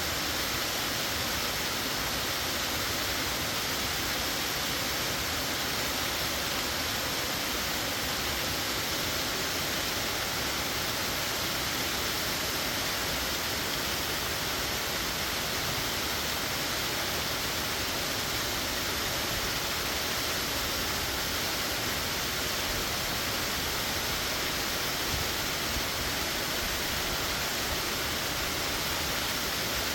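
Plunging waterfall of about 75 ft dropping into a narrow rock canyon: a steady, unbroken rush of falling water with a bright hiss and no change in level.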